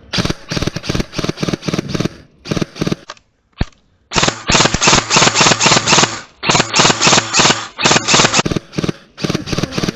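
Airsoft rifles firing in long rapid-fire bursts, a dense rattle of shots with short pauses between strings. The firing is loudest and most continuous from about four seconds in.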